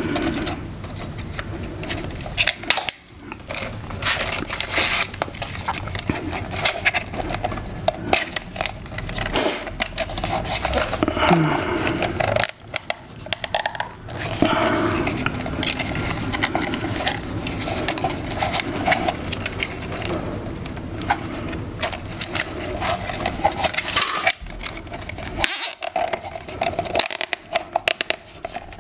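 Nylon zip ties being fastened and handled around cables on a metal TV mount bracket: irregular clicking and rustling.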